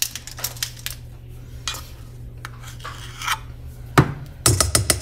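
Black plastic measuring spoons on a ring being picked up and handled over a stainless steel mixing bowl: light clacks and clicks, one sharp knock about four seconds in, then a quick run of clicks near the end, over a steady low hum.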